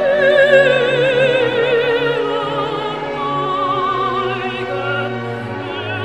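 Background music: a high operatic voice sings long notes with wide vibrato over orchestral accompaniment.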